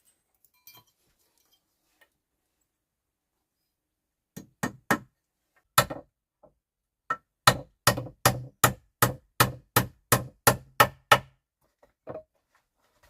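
Repeated hard knocks, as from hammering or striking. Three quick knocks and a single one come first, then a steady run of about a dozen at roughly three a second, and one last knock near the end.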